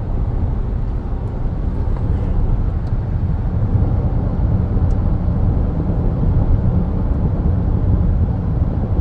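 Steady low rumble of a car driving along the road: engine and tyre noise heard from inside the moving car.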